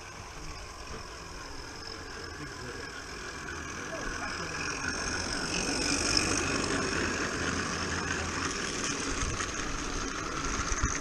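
Small 16mm-scale live-steam garden railway locomotive approaching and passing close by, its steam exhaust hissing, growing louder to a peak about six seconds in.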